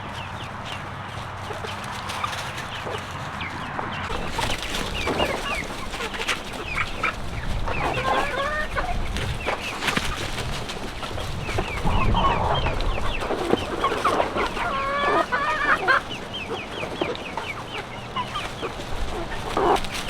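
Backyard chickens clucking, with short high chirps all through. Louder, drawn-out hen calls come about 8 seconds in and again through the middle of the stretch.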